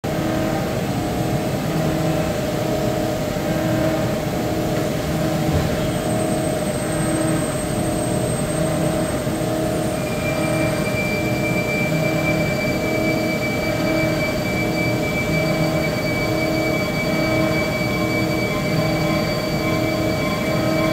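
DMG Mori CLX 450 TC CNC lathe running: a steady machine hum with a regularly pulsing low tone, while the subspindle travels toward the main spindle. A high steady whine joins about halfway through.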